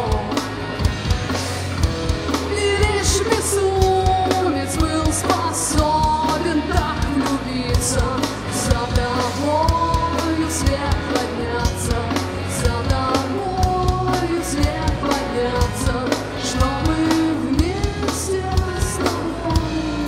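Live rock band playing: drum kit keeping a steady beat under electric guitar and bass, with a melody line winding over the top.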